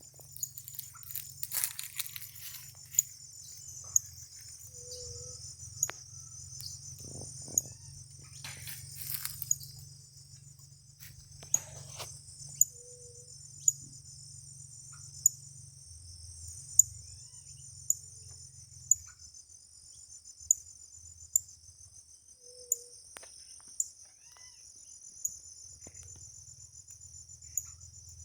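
Steady high-pitched insect chorus, typical of crickets, with sharp ticks about once a second through the second half and a few rustles in the first ten seconds.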